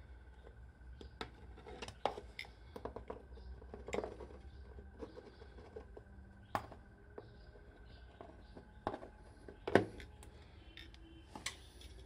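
Pliers and small metal parts clicking and knocking against a plastic motorcycle headlight cowl as a part is pried off it: irregular sharp clicks scattered throughout, with one louder knock about ten seconds in.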